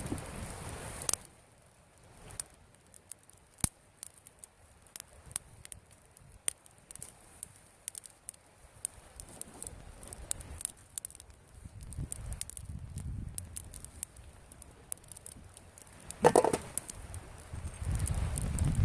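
Campfire crackling, with irregular sharp snaps and pops from the burning wood. A low rumble is heard in the first second and again near the end, with a louder burst about 16 seconds in.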